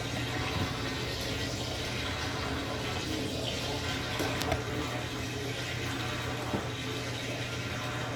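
Brastemp Total 7 kg (BWL07) top-load washing machine with water rushing steadily through it over a constant low hum, and a couple of faint clicks partway through.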